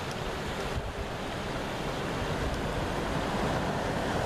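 Steady rushing of river water spilling over a low concrete weir, with wind on the microphone. A truck's engine and tyres grow steadily louder as it approaches across the bridge.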